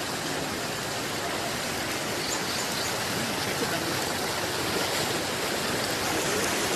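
Floodwater rushing steadily along a street, a continuous turbulent wash of running water.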